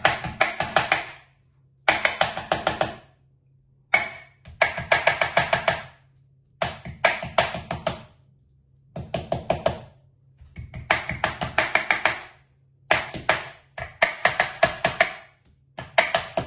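Small stainless steel saucepan tapped quickly and repeatedly on peeled prawns between sheets of cling film on the worktop, pounding them flat into thin discs: runs of rapid knocks a second or two long, with short pauses between them.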